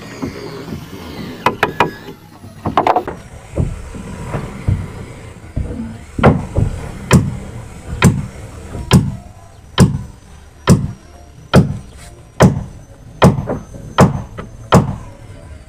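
A few scattered knocks, then from about six seconds in a steady run of hammer blows, a little more than one a second, during timber boat-frame building.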